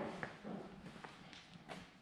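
Footsteps, a few separate steps that grow fainter.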